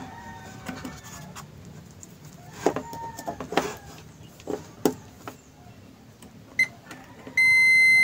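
Digital multimeter's continuity buzzer: one short beep about six and a half seconds in, then a loud steady high beep near the end as the probes close the circuit through the kettle base, showing continuity, the line is whole. Before it, light clicks and taps of the test probes and plug being handled.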